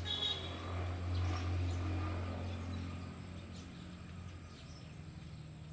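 Outdoor ambience: a steady low rumble that fades after about three seconds, with a few short bird chirps near the start.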